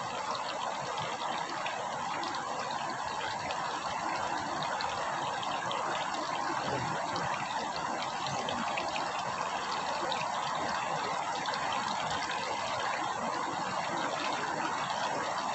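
Flowing river water: a steady, even rush with no breaks.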